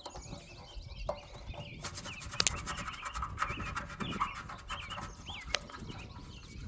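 Small birds chirping over and over, with a few sharp clicks and scrapes from handling close by.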